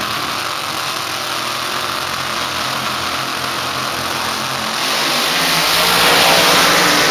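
Two supercharged funny car engines running at the starting line, then launching at full throttle about five seconds in. The sound swells to its loudest and begins to fade as the cars pull away down the drag strip.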